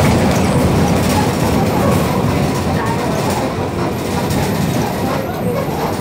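Steady engine and road rumble heard from inside a moving bus.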